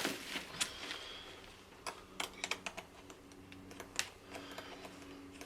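Irregular light clicks and taps from handling the tree-climbing saddle's hardware and parts, with a small cluster of quick clicks partway through and a sharper click about four seconds in.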